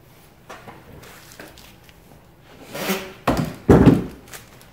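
Hands handling small mounting hardware: a few light clicks, then a rustle and a cluster of heavy thumps and knocks about three seconds in.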